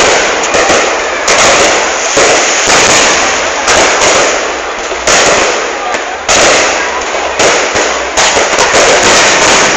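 Fireworks display: a continuous barrage of loud bangs and crackling, with a fresh burst about every second.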